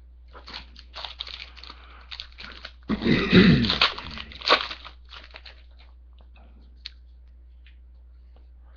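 Foil trading-card pack wrapper being torn open and crinkled in the hands: scattered crackles, a louder burst of tearing and crumpling about three seconds in, then a few small rustles that die away.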